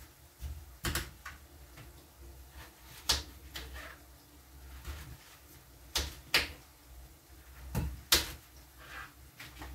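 Knife cutting potatoes on a cutting board: about seven sharp knocks of the blade on the board, spaced unevenly, with faint handling sounds between.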